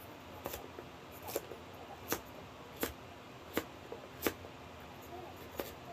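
Kitchen knife slicing through daikon radish and knocking on the cutting board: about seven crisp cuts in an even, unhurried rhythm, with a longer pause before the last.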